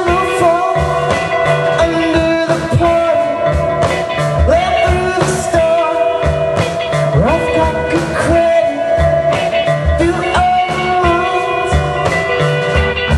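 Live rock band playing a song, with drums, bass and electric guitar, and a lead vocal or guitar line sliding between notes.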